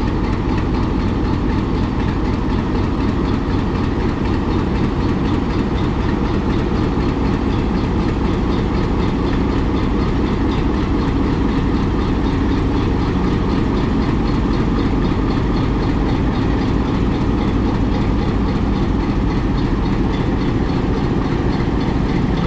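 Diesel locomotive engine idling steadily, a continuous heavy rumble that holds even throughout.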